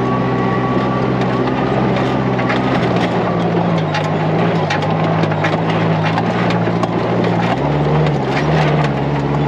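Off-road buggy's engine running at speed on a rough dirt track, its note stepping up and down a few times as the throttle and gearing change, over steady road and wind noise with scattered sharp knocks and rattles from the chassis hitting bumps.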